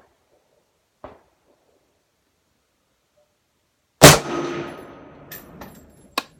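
S&W M&P 10 semi-automatic rifle fires a single .308 Winchester round (Winchester 180-grain Power Point) about four seconds in: a sudden loud shot with a long decaying tail. Near the end, sharp metallic clinks follow, typical of the ejected brass case landing. Two faint clicks come before the shot.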